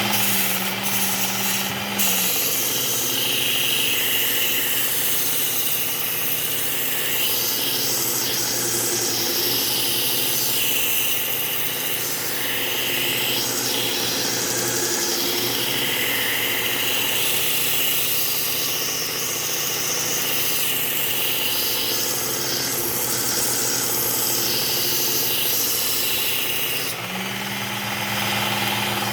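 Powered belt sharpener with a Cubitron 120-grit belt grinding the edge of a pruning-tool blade. The motor runs free for about two seconds. Then the steel is pressed to the belt and the motor note drops under the load, with a steady abrasive hiss. Near the end the blade comes off and the motor returns to its higher free-running hum.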